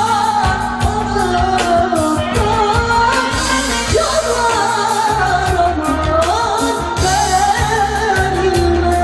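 A woman singing a Turkish folk zeybek song live, her voice carried through the stage amplification, over a band with a davul drum beating a steady pulse and a bağlama playing along.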